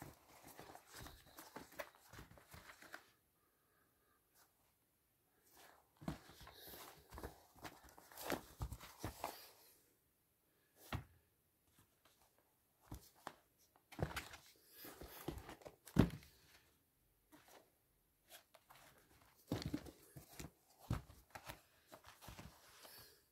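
Used sneakers being handled on a carpet: hands lifting, turning and setting down the shoes, with bursts of fabric and lace rustling and a few soft thumps, separated by short pauses.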